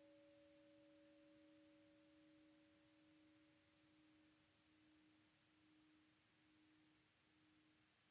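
Faint sustained low pure tone from an electroacoustic new-music composition, with a fainter higher tone above it that fades out about five seconds in. The lower tone carries on, wavering slightly in level.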